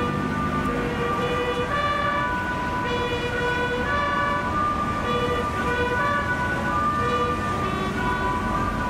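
Naval bugle call for the raising of the ensign: a string of held notes, each lasting about half a second, stepping up and down in pitch.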